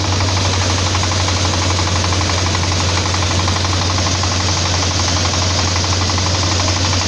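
A 32-horsepower diesel engine running steadily under load, driving a drum thresher as crop is fed in. It makes a continuous dense, fast knocking drone over a strong low hum.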